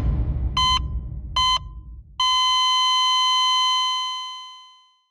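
Heart-monitor sound effect: a few short, evenly spaced electronic beeps, then a long flatline tone that fades out, the sign of a death. A low rumble dies away under the beeps.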